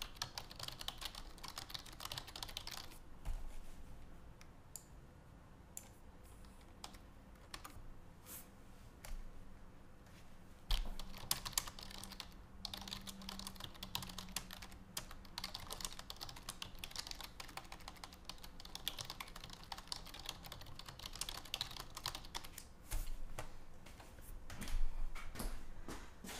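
Typing on a computer keyboard: runs of quick keystrokes in several bursts with short pauses between, and a couple of louder knocks near the end.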